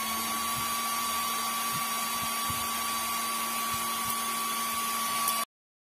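Cooling fan of a battery-powered class D amplifier running after power-on: a steady whir with a steady high whine and a lower hum, with a few faint low knocks. The sound cuts off suddenly shortly before the end.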